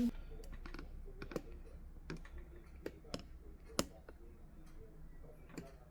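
Scattered light clicks and taps of small objects and packaging being handled and set down, irregular, with two sharper knocks about a second and a half in and near four seconds in, over a faint low room hum.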